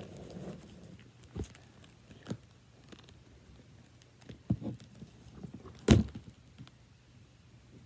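Cardboard box being handled and worked at: a few scattered knocks and thumps with light scraping, the loudest thump about six seconds in.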